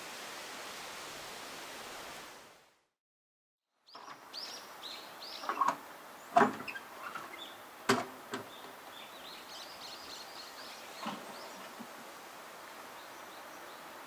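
Steady hiss that drops out, then several knocks and clunks as an old sewing machine with a cast-iron stand is handled and lifted on the bed of a small pickup truck, the loudest two a second or so apart. Small birds chirp around the knocks.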